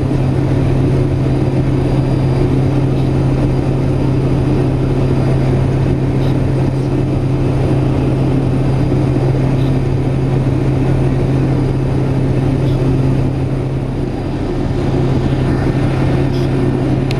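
Pilatus PC-6 Porter's turboprop engine and propeller running under power, heard from inside the cabin as a loud, steady drone with a constant low hum.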